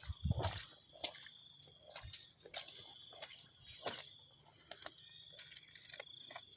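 Steady high-pitched chorus of insects, with irregular sharp clicks or snaps close by, about eight of them spread unevenly.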